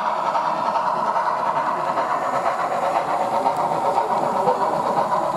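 HO-scale model train rolling past on the layout track, its passenger cars and caboose making a steady running noise.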